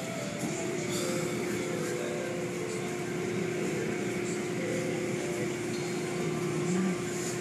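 Automatic car wash heard from inside the car: water spray and cloth strips washing over the glass over steady machinery noise. A steady hum comes in about half a second in.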